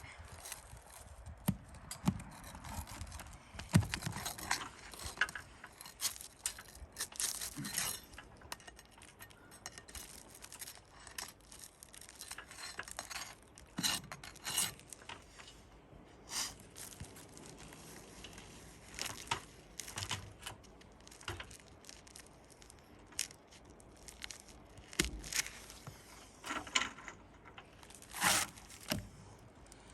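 Irregular scraping, clinks and tearing as a damaged asphalt roof shingle is worked loose and its nails pried out, with sharp clicks and knocks scattered throughout.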